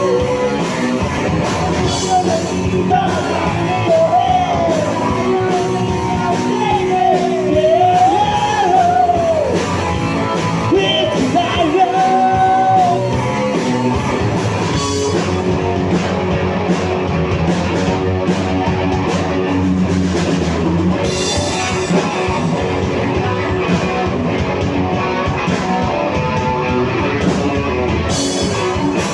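Live rock band playing: drum kit and guitars, loud and steady. For roughly the first half a high lead line bends and wavers over the band, then drops out, leaving the band playing on.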